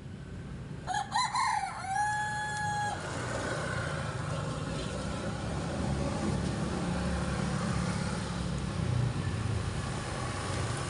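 A rooster crowing once, about a second in, ending in a long held note, followed by a low steady rumble.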